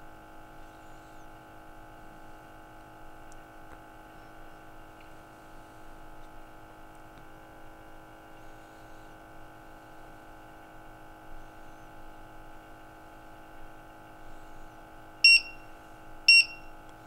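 Faint steady hum, then near the end two short high-pitched beeps about a second apart from a Trak-It IIIa multi-gas detector: its alarm that the methane calibration has failed, which repeats until a button is pressed.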